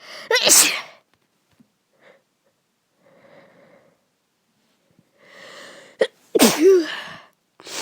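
A person sneezing from an allergy to a flower. One loud sneeze comes about half a second in; after a pause there is an audible in-breath and a short catch, then a second big sneeze, with a third starting at the very end.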